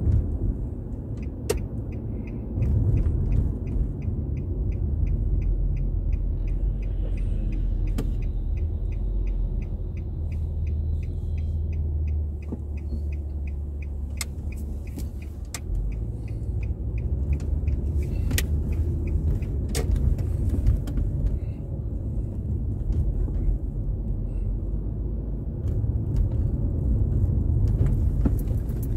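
Car interior road and engine rumble while driving, with a steady, even ticking for roughly the first half, typical of a turn-signal indicator. A few single sharp knocks are heard.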